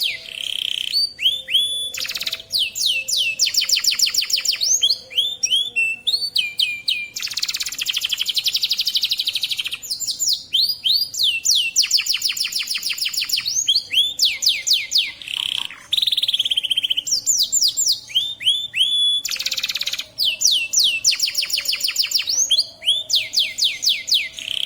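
Domestic canary singing continuously: long rapid trills of repeated down-sweeping notes, one series after another with only brief breaks.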